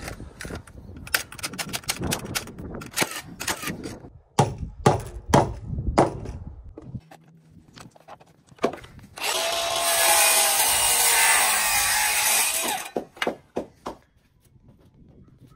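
A run of sharp knocks and clatter of framing lumber being handled and fastened on roof trusses, then a power saw cutting through a board for about three and a half seconds, followed by a few more knocks.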